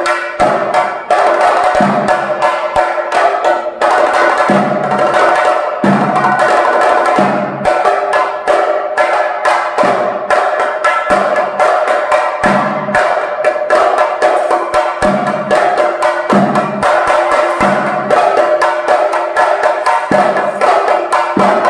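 Chenda drums beaten fast with sticks, a dense run of sharp strokes with a deeper stroke repeating about every second and a quarter, over a steady ringing tone.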